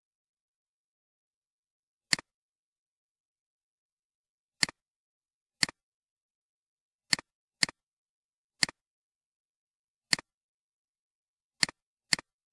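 Computer mouse clicks, about nine sharp single clicks at irregular intervals of half a second to two and a half seconds, each a quick press-and-release double tick, with silence between.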